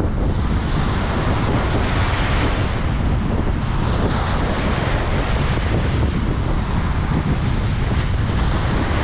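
Ocean surf washing continuously onto a beach, in gentle swells, with a low rumble of wind buffeting the microphone.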